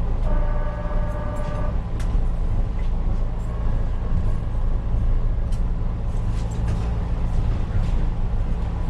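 P865 light rail car running over old track: a steady low electric hum with scattered sharp clicks from the wheels on the rails. Near the start its horn sounds once for about a second and a half as it crosses a road grade crossing.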